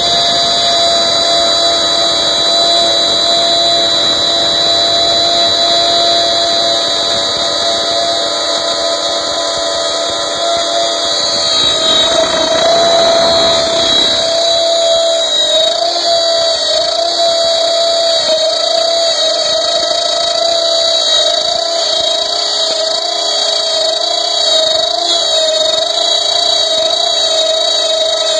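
A CNC-mounted wood router spins a 1/4-inch flat-end bit cutting MDF with a steady high whine. From about 11 to 14 seconds in, a broader rushing noise joins it. After that the whine's pitch wavers up and down with the changing cutting load.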